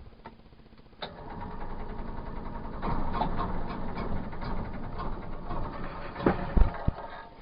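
Small boat petrol engine turned over on its electric starter with the choke on, catching about a second in and running unevenly as it comes up to speed, with a few louder knocks near the end. This is a cold start on a newly fitted spark plug.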